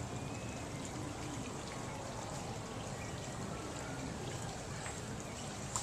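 Running water trickling and splashing steadily, with a few faint, short bird calls over it.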